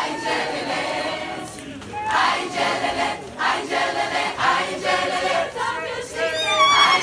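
A large crowd singing together in chorus, in rhythmic phrases. Near the end, a high, wavering held note comes in over the singing.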